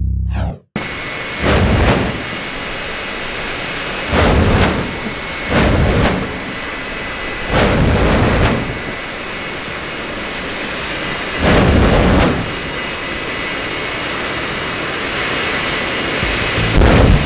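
General Electric J79 afterburning turbojet in a jet truck running, a loud continuous jet noise with a thin high whine. It swells sharply about six times as the afterburner and flame-throwing stacks fire.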